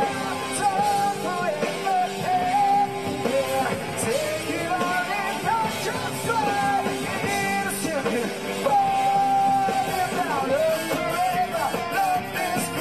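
Live rock band playing: a male vocalist singing over electric bass guitar and drums.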